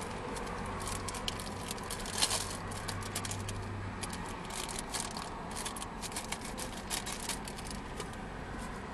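Small clicks, crackles and scrapes of hands handling a cigar and a new cigar cutter with its packaging, over a steady low hum in the vehicle's cabin.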